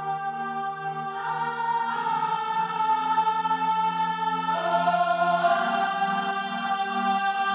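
Background music: slow, sustained choral chords, held voices that shift to new chords every couple of seconds.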